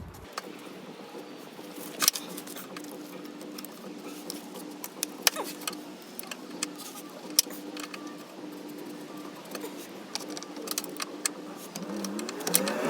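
Scattered metallic clicks and clinks of a socket wrench and hand tools working the brake line bracket bolts, with a faint steady hum underneath.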